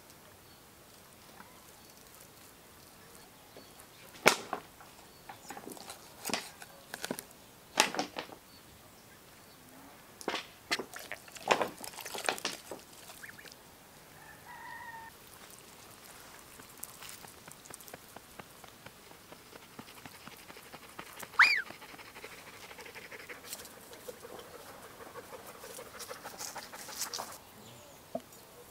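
A run of sharp knocks and clatters as food is handled and set into a terracotta dish. About two-thirds of the way in comes a single short, high chirp that rises and falls.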